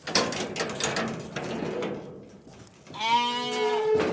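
A hair-sheep lamb gives one long, wavering bleat near the end, after a couple of seconds of clattering and rustling from the animals being handled.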